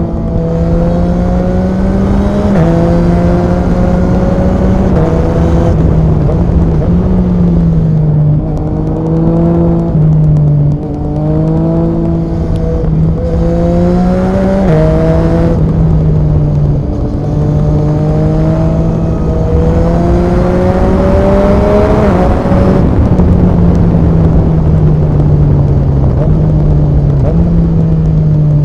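Yamaha MT-09 SP inline-three engine breathing through an Akrapovic Racing exhaust under way. It runs loud, and its note repeatedly climbs and then drops abruptly as the rider works the throttle and gears.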